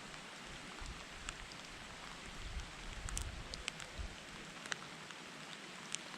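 Steady rain falling, a soft even hiss with scattered sharp ticks of individual drops striking close by.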